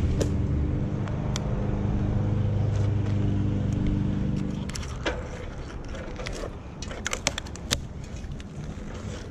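A motor vehicle engine hums steadily and stops about halfway through. After that come scattered light clicks and cracks as dead branches are grabbed and handled.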